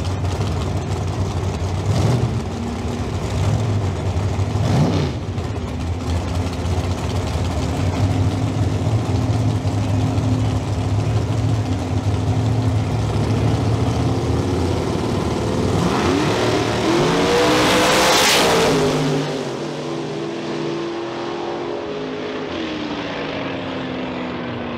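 Two big-tire drag race cars idling at the starting line, with a few sharp throttle blips. About sixteen seconds in they launch at full throttle: the engines rise steeply in pitch to a loud peak, then fall away and fade as the cars run down the track.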